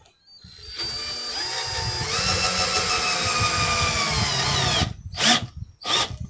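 Cordless drill-driver driving a screw into a wooden board: a steady motor whine for about four seconds that drops in pitch as the screw bites in near the end. It is followed by two short bursts of the motor that seat the screw.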